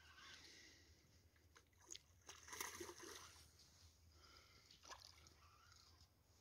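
Near silence, with a few faint clicks and a brief faint rustle about two and a half seconds in.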